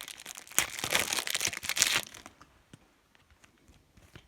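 Foil trading-card pack being torn open and crinkled, a dense crackling that lasts about a second and a half and stops about two seconds in, followed by a few faint ticks of the cards being handled.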